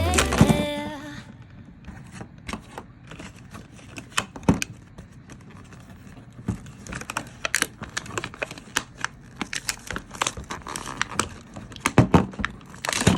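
Packaging being unwrapped by hand: plastic wrapping crinkling and tearing, with many irregular small clicks and taps of plastic pieces being handled.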